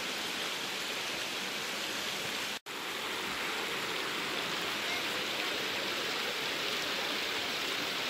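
Steady rush of a shallow mountain creek running over rocks, with a momentary dropout about two and a half seconds in.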